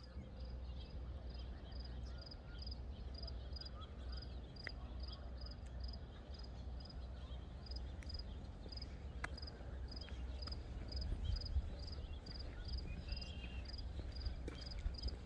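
A cricket chirping steadily, about three short high chirps a second, over a low rumble.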